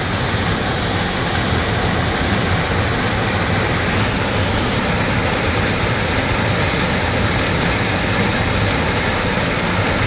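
A waterfall pouring into a rocky plunge pool: a steady, loud rush of falling water.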